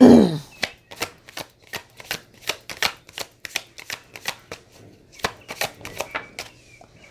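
A deck of tarot cards being shuffled by hand: a run of quick, light card slaps, two or three a second. A short falling hum of voice at the very start.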